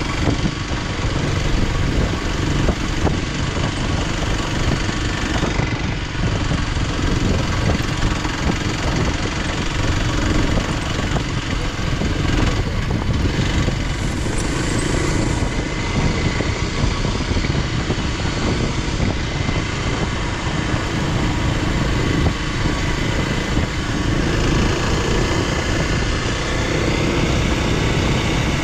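Motorcycle being ridden: its engine running steadily under way, mixed with wind and road noise.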